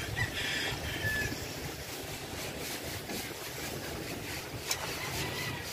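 Wind rumbling on the microphone over a steady outdoor hiss, with a couple of short high chirps in the first second and a half.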